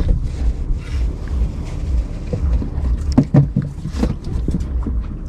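Low, uneven rumble of wind buffeting an action camera's microphone, with a few short knocks near the middle.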